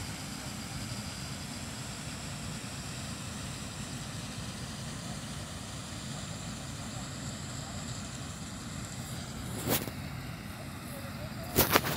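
Steady low outdoor rumble with a faint high steady tone above it. There is one sharp click about ten seconds in and a quick run of louder clicks near the end.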